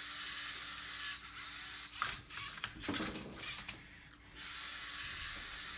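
LEGO Mindstorms EV3 Rubik's cube robot at work scanning the cube: a faint steady hum with a cluster of mechanical clicks and knocks from its motors and plastic parts between about two and four seconds in.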